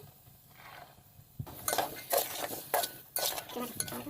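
Cooking utensils clinking and knocking against a pot, a run of short knocks starting about a second and a half in.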